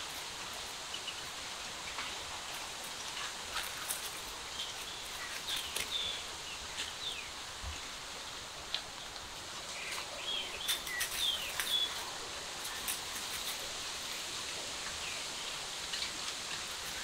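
Outdoor ambience: a steady hiss with small birds chirping in short clusters now and then, and light clicks and rustles of dry leaves and grass.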